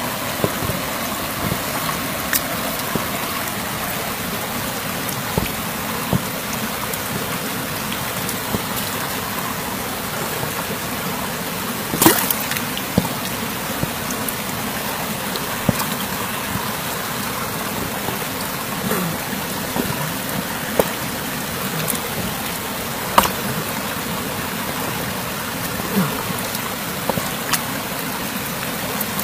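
Shallow river water running steadily over rocks, with a few sharp clicks scattered through it as a hand works among the stones in the water; the sharpest comes about twelve seconds in.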